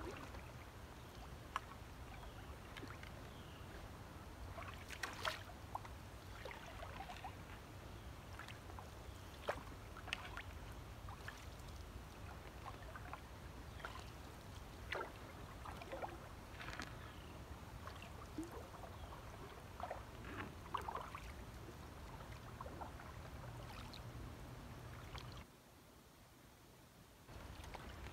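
Canoe being paddled through still floodwater: scattered small splashes, drips and light knocks of the paddle and hull over a steady low rumble, which drops out for a moment near the end.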